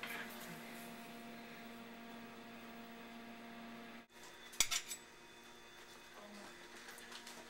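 Steady electrical hum with a few sharp clinks of dishes and cookware: a short clatter at the start and a louder quick cluster of clinks a little past halfway.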